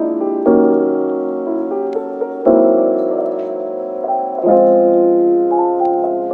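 Background music: soft piano chords, a new chord struck about every two seconds and left to ring and fade.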